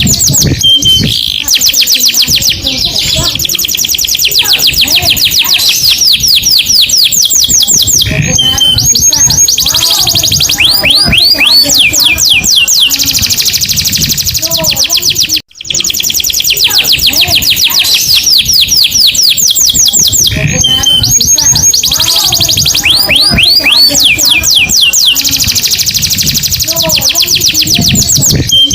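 Canary song: long runs of rapid, high trills and rolls, one phrase after another, with a sudden break lasting a split second a little past halfway.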